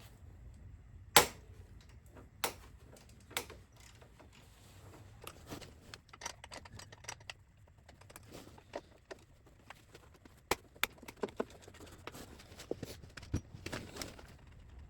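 Irregular metallic clicks and knocks of hand tools working a 12 mm bolt, with one sharp knock about a second in and smaller clicks scattered through.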